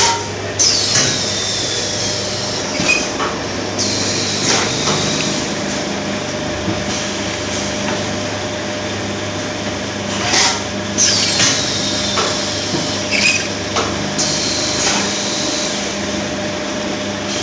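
Steel bottle filling machine running with a steady hum, knocks and clicks. A cycle repeats about every ten seconds: a hiss that falls in pitch over a couple of seconds, then a sudden higher hiss lasting about three seconds.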